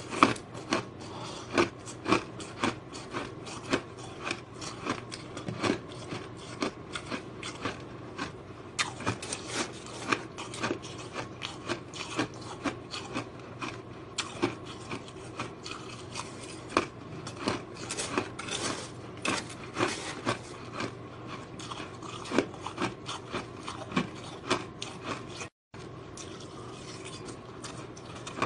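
Powdery white ice being bitten and chewed close to the microphone: irregular crisp crunches several times a second. The sound cuts out for an instant near the end.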